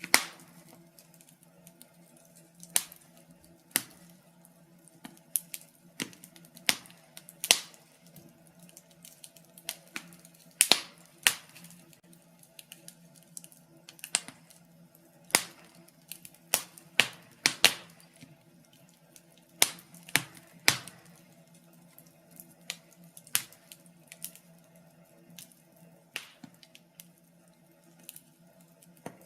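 Wood fire crackling in a fireplace: irregular sharp pops and snaps, several loud ones every second or two, over a faint steady low hum.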